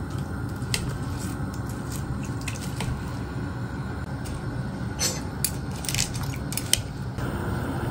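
Water on the boil in a stainless steel pot on a gas burner: a steady low rushing with scattered sharp pops and ticks.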